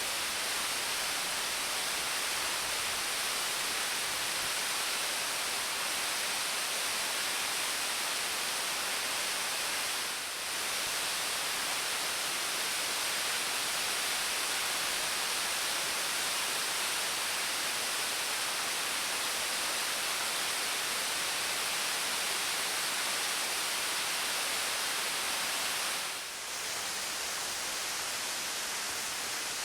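Partially frozen waterfall: a steady rush of falling water that dips briefly twice, about ten and twenty-six seconds in.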